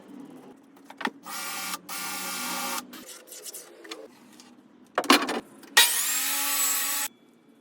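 A power tool running in two short bursts of about a second each, each preceded by a sharp knock, with shop handling noises between them.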